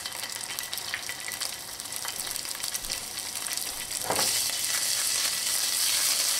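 Minced garlic sizzling and crackling in hot olive oil in a nonstick frying pan. About four seconds in there is a brief knock, and after it the sizzle is louder.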